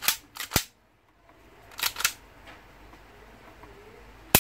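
Sharp mechanical clicks from a KJ Works KP06 hi-capa airsoft pistol being worked by hand: a quick cluster of clicks at the start, a pair about two seconds in, and a single loudest click near the end.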